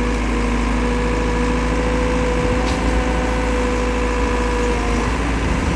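Backhoe loader's diesel engine running steadily while digging, its note shifting slightly about five seconds in.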